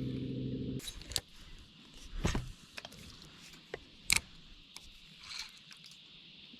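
A steady motor hum that cuts off under a second in, followed by a few scattered light clicks and knocks of fishing gear on a boat, the sharpest about four seconds in.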